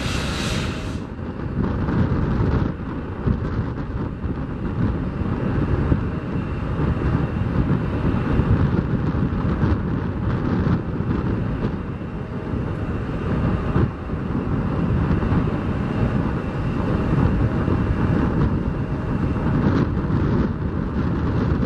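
Wind buffeting the microphone in uneven gusts, over the steady distant noise of a taxiing Boeing 737-500's CFM56 jet engines.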